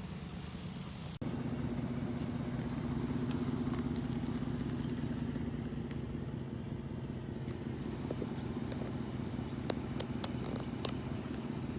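A vehicle engine running with a steady hum. It cuts in about a second in, right after a brief dropout, and a few sharp clicks come near the end.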